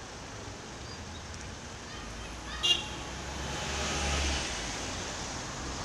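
Wind and road-traffic noise heard from a bicycle-mounted camera. A single sharp click comes about two and a half seconds in, and the traffic noise swells and eases off around four seconds as a double-decker bus passes close alongside.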